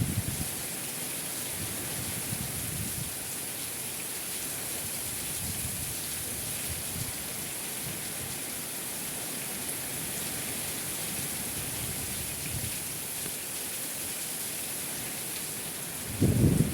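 Steady rain pouring down in an even hiss. A brief, louder low rumble of wind comes near the end.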